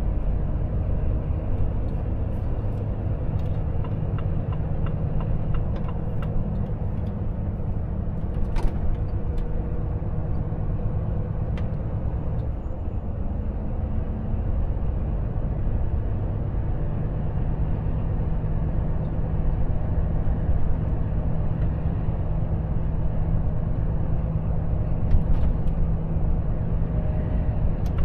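Volvo FH truck's six-cylinder diesel engine running steadily, its note shifting briefly about twelve seconds in, with a few light clicks.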